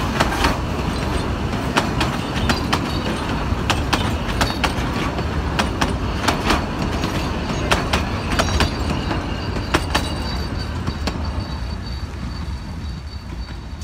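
Narrow-gauge wooden passenger carriages rolling past, their wheels clicking irregularly over rail joints over a steady rumble. The train fades away near the end, and a thin, steady high tone can be heard in the second half.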